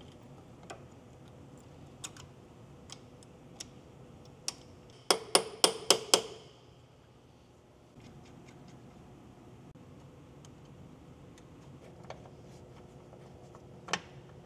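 Scattered light metallic clicks and taps from hand tools and brake parts while fitting pads and the brake line to a brake caliper, with a quick run of about six sharp clicks about five seconds in.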